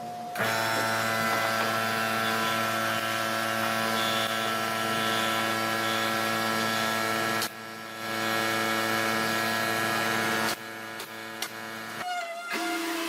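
An electric woodworking power tool running at a steady pitch, cutting out briefly past the middle, then starting again and stopping near the end.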